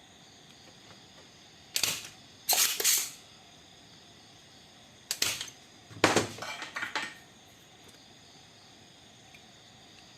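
Sharp mechanical snaps and clatter in four short groups, the last and longest a rattle of several clicks about six seconds in.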